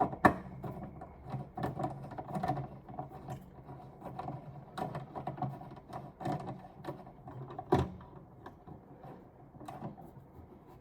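Ceiling fan mounting bracket being fastened up to the ceiling: a run of metal clicks and knocks with stretches of low mechanical whirring, the sharpest knocks just after the start and near the end.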